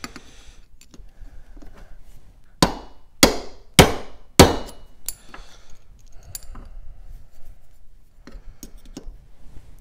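Ball-peen hammer striking a punch to drive a bearing out of a Razor MX650 electric motor's aluminium end cap. Four sharp metallic strikes come about two-thirds of a second apart, starting roughly two and a half seconds in, followed by lighter taps and clicks.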